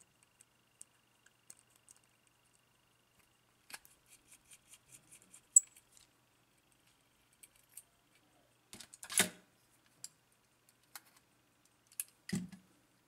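Small metal clicks and taps from a screwdriver and loose parts as the platform escapement is unscrewed and lifted off a Soviet marine wall clock movement. A run of quick light ticks comes a few seconds in, a louder clatter about nine seconds in, and a dull knock near the end.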